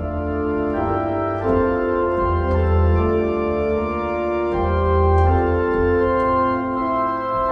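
Electronic home organ playing slow sustained chords over deep bass notes, the chords changing every second or so.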